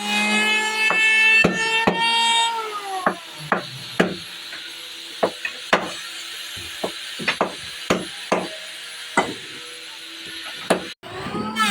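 Makita electric planer motor whining at speed, then winding down in pitch after about two and a half seconds. A string of sharp wooden knocks and clacks follows over a faint lingering hum.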